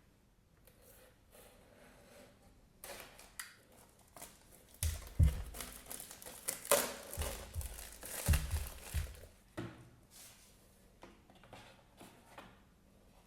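A flat-packed cardboard storage box and its paper wrapping being opened and handled: crinkling, rustling and tearing with sharp clicks and a few light thumps, busiest and loudest in the middle.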